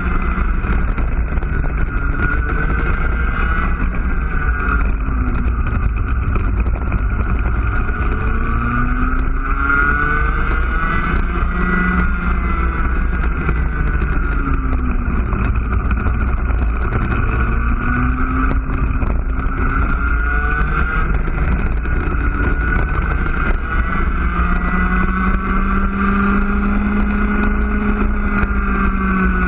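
IAME two-stroke cadet kart engine at racing speed, revs rising on each straight and dropping off into the corners, between roughly 6,700 and 11,000 rpm. Near the end it pulls up through a long, steady rise in pitch.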